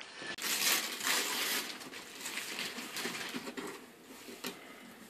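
Wrapping paper tearing and crinkling as a present is unwrapped, loudest in the first second or so and fading toward the end.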